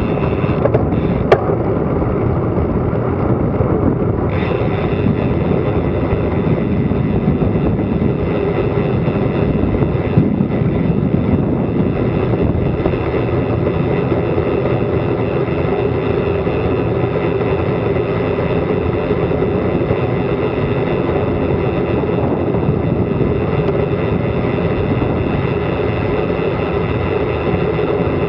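Wind rushing over an action camera's microphone on a bicycle descending fast: a steady, loud rumble of wind noise, with a sharp click about a second in.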